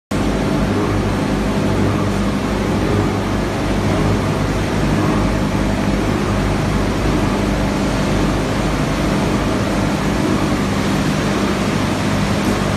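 PE/PP plastic film washing line running: a steady, unbroken industrial din of machinery with a low hum underneath.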